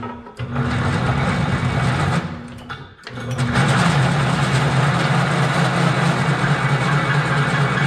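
Floor drill press running with its bit cutting into steel pipe, enlarging a plug-weld hole to 3/4 inch: a steady motor hum under a grinding cutting noise. The cut eases off for a moment about two and a half seconds in, then bites again.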